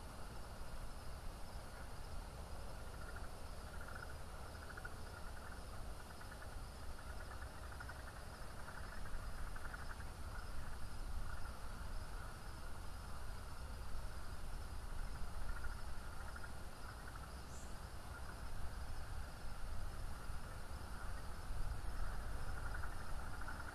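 Steady chorus of night-calling insects or frogs: a dense, finely pulsing trill that swells a little several times, over a low rumble.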